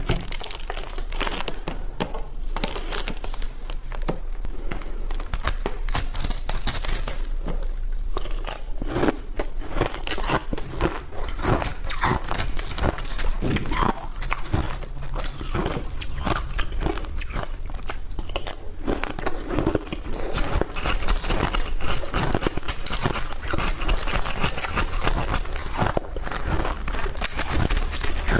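Close-miked crunching and chewing of hard ice, a dense, continuous run of crackling bites.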